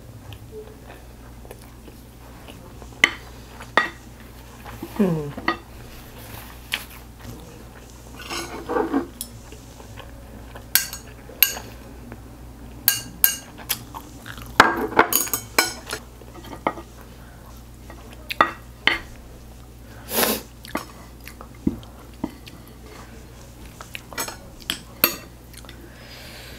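Metal chopsticks and a wooden spoon clicking and scraping against ceramic plates, with chewing between them. The clinks are scattered and irregular, with a busier cluster of clatter about fifteen seconds in.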